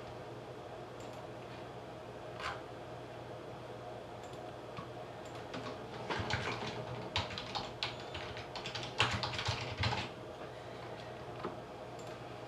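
Typing on a computer keyboard: a few scattered key clicks, then a quick run of clicking from about halfway through to near the end. A faint steady hum runs underneath.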